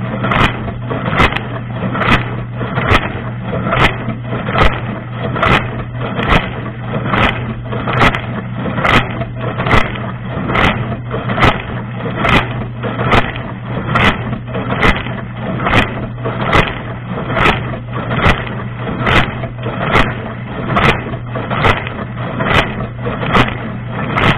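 Dishwasher wash cycle heard from inside the tub: the pump's steady hum under water spray that surges evenly a little more than once a second as the rotating spray arm sweeps past.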